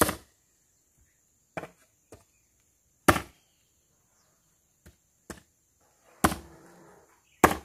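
Axe chopping a log of firewood: separate hard blows every one to two seconds, three of them much louder than the lighter knocks between, each strong blow followed by a short ring.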